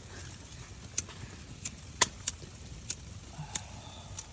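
Wood stove fire crackling: about seven sharp pops and clicks at irregular intervals over a low, steady rumble.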